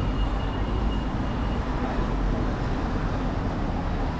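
Steady road traffic on a town high street, a continuous deep rumble of passing cars and vans. A faint thin high tone sounds over it for the first second and a half.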